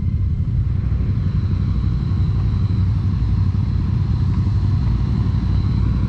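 ATV engine running steadily as the quad rides along, a continuous low, even drone with no pauses or revving swings.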